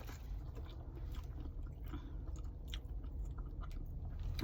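A person chewing a bite of snow crab meat with Old Bay seasoning close to the microphone: quiet, wet mouth sounds with scattered small clicks.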